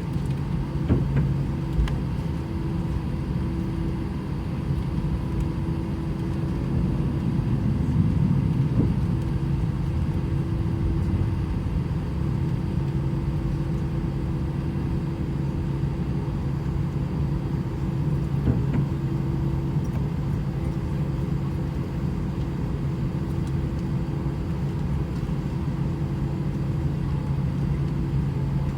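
Airbus A319 cabin noise with the jet engines at idle: a steady low hum carrying a constant drone, with a few faint knocks and jolts as the airliner rolls along the taxiway.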